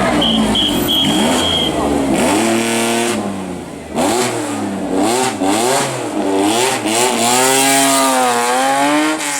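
Historic rally car engine revving hard along a special stage, its pitch climbing and dropping back again and again through gear changes and throttle lifts, with one longer climb and fall near the end. A short high whistle-like tone sounds briefly in the first couple of seconds.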